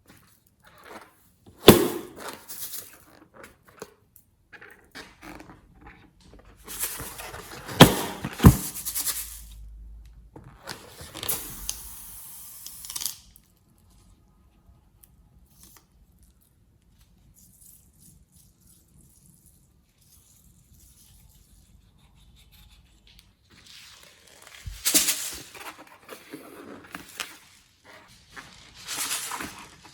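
Hands handling slime-making materials and containers: several sharp knocks and clatters with stretches of scraping and rustling, and a quiet spell in the middle.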